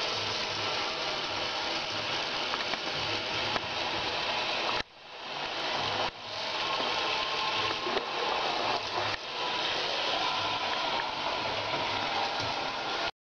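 Water running from a tap into a bathroom sink and over a lying cat, a steady hiss. It drops away sharply about five seconds in, comes back, and cuts off suddenly near the end.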